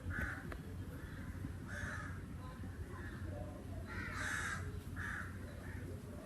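Crow cawing repeatedly, a series of short harsh caws with the loudest about four seconds in.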